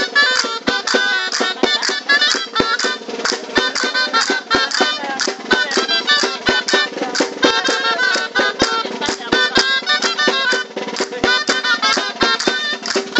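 Dulzaina (Riojan gaita) playing a quick traditional dance tune, over sharp regular beats about twice a second.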